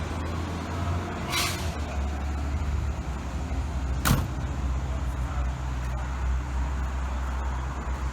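A car engine running with a steady low rumble, with a short hiss about a second and a half in and a sharp click about four seconds in.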